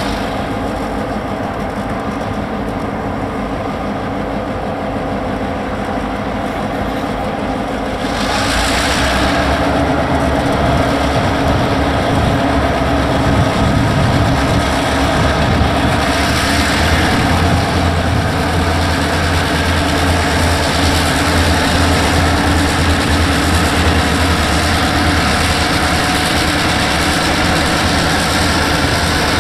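EMD GP38-2 diesel-electric locomotive engine running steadily, then working harder and louder about eight seconds in, with a deeper rumble that holds to the end.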